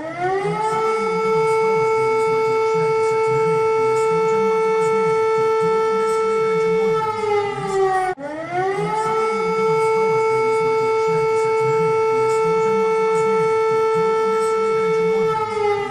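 Civil defence siren sounding two long steady tones. Each one rises to pitch over about a second, holds level, then sags slightly. The first breaks off about eight seconds in, and the siren climbs straight back up for the second.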